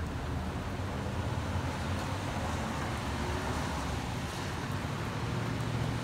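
Traffic on a wet road in the rain: a steady hiss of tyres on wet pavement over a low rumble, swelling and fading around the middle as a car passes.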